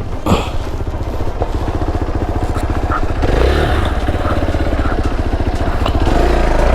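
Motorcycle engine running with a rapid, even firing pulse, getting louder about three seconds in as it picks up speed.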